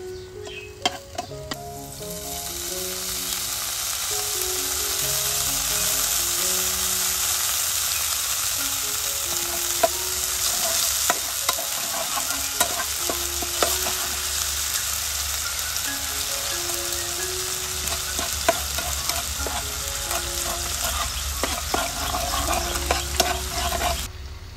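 Chopped garlic sizzling in hot oil in a pan. A spatula stirs and scrapes it with sharp clicks against the pan. The sizzle rises about two seconds in and cuts off suddenly near the end.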